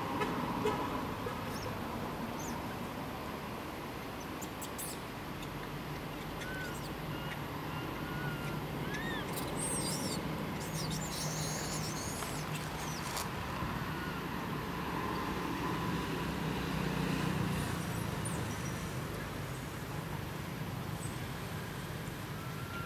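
Outdoor background with a steady low engine hum that swells in the middle, and a few short, high, upward chirps.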